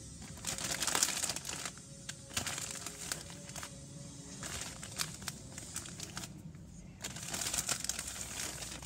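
Plastic marshmallow bag crinkling in irregular bursts while marshmallows are taken out and set down on a plate.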